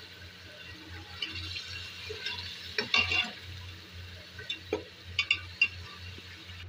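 Beef masala sizzling in hot oil in a metal pot, fried until the oil separates, while a steel spoon stirs it and scrapes and clinks against the pot. The spoon sounds sharpest about three seconds in and again as a few quick knocks around five seconds in.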